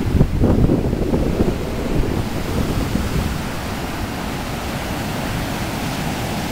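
Shorebreak waves breaking and washing up the sand, a dense low noise of surf, with wind buffeting the microphone. It is a little louder in the first couple of seconds.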